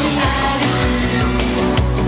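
Live band playing pop-rock music, with drums striking a beat under bass and other instruments.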